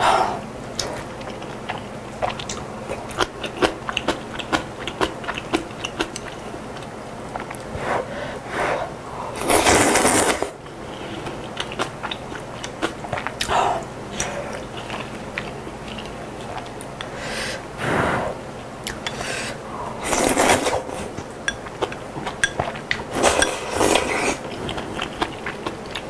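Close-miked chewing of soft noodles and chicken, with many small wet mouth clicks, broken by a few louder slurps of about a second each.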